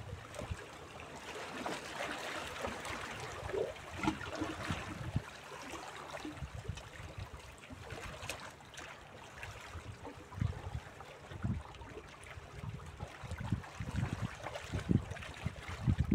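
Small sea waves lapping and splashing against shoreline rocks. Irregular low thuds begin about ten seconds in.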